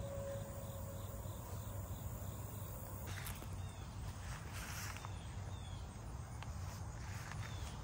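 Outdoor garden ambience: a steady low hum underneath, with short, high, falling chirps repeating every second or so from about three seconds in, and a few soft rustles.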